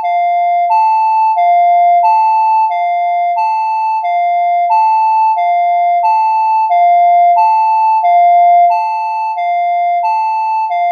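Electronic emergency alert tone: two pitches, one high and one low, sounding in turn about every two-thirds of a second in a steady, loud hi-lo pattern.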